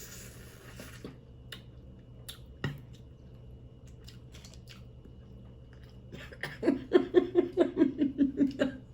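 Close-miked eating of boiled crawfish: a few faint sharp clicks of shell being handled, then near the end about two seconds of quick rhythmic chewing, loud against the mic.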